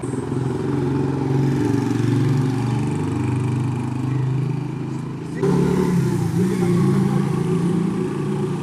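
Honda CD-70's single-cylinder four-stroke engine idling steadily on the stationary motorcycle, getting a little louder about five seconds in.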